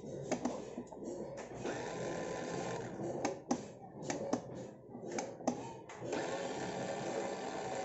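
Small electric drive motor of a kids' ride-on electric bike whirring with a steady whine, stopping and starting again between a series of sharp clicks. The repairer puts the interruptions down to a slight problem in the switch.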